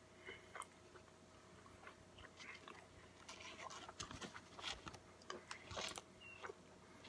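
Faint close-up chewing of a mouthful of burger: soft irregular crackles and small clicks from the mouth, busier from about three seconds in.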